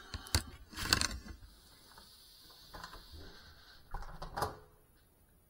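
A few sharp knocks and light clattering of a small FPV quadcopter tumbling and coming to rest on a floor, with a faint high whine between them. The knocks cluster about a second in and again around four seconds in, and it goes almost silent near the end.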